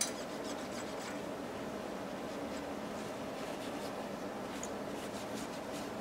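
Paper towel damp with isopropyl alcohol rubbing the metal base of a tower CPU heatsink, wiping off old thermal grease: soft, irregular rubbing strokes, with a short click at the very start.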